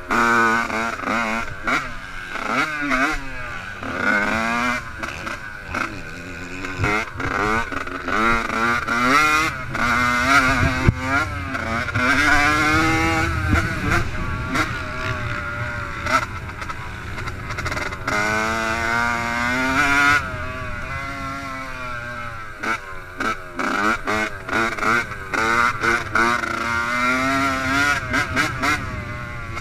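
Yamaha YZ85 two-stroke motocross bike being ridden hard, the engine revving up and shifting, its pitch climbing and dropping again and again, heard from the rider's helmet.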